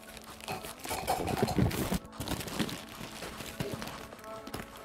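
A plastic mailing bag crinkling and rustling as hands pull and tear it open around a cardboard laptop box, with a run of short crackles that is loudest from about one to two seconds in.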